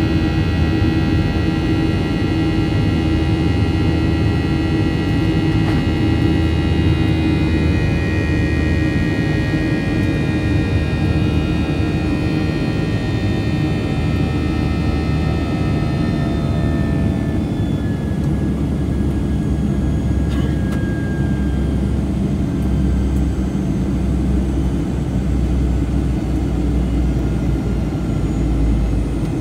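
Boeing 737-800 cabin noise heard beside the wing during the climb after takeoff: a steady, loud rumble from the CFM56-7B turbofan engines and airflow, with several high steady whining tones that fade out about halfway through.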